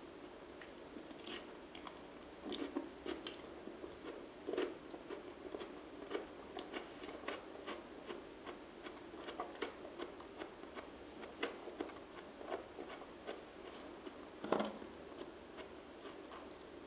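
Close-miked chewing of raw aloe vera leaf gel: irregular wet, crunchy mouth sounds and clicks, with one louder crunch near the end.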